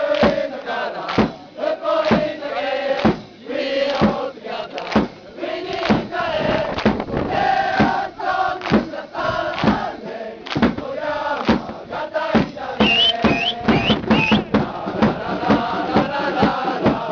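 A large crowd of football supporters sings a chant together over a steady beat that falls about two to three times a second. Near the end a few high rising whistles cut through.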